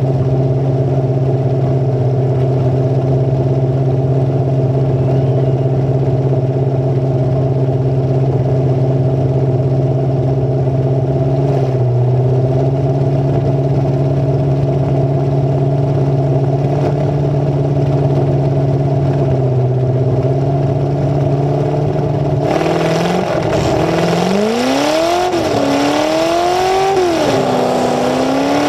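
Full-size demolition derby car's engine running at a steady speed, with two brief dips in revs. About 22 seconds in, a wider rattling noise sets in and the engine revs up and down several times as the car gets moving.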